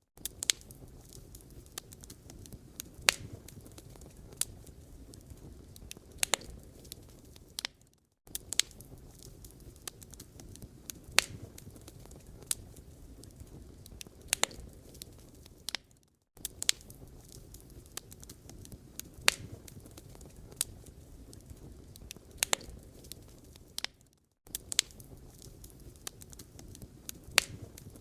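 Wood fire crackling in a fireplace: irregular sharp pops and snaps over a low, steady rumble of the flames. The sound dips out briefly about every eight seconds, as a repeating loop would.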